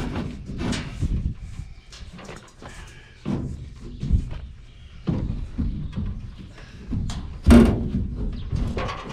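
A series of uneven knocks and thuds, the heaviest about seven and a half seconds in.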